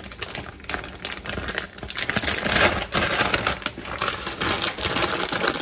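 Plastic bag of shredded cheese crinkling as it is handled, a rapid irregular crackle.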